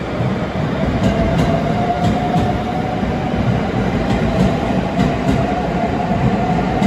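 521 series electric multiple unit pulling out of the platform: a motor whine that comes in about a second in and slowly rises in pitch as the train gathers speed, over the clicking of its wheels crossing rail joints, often in pairs.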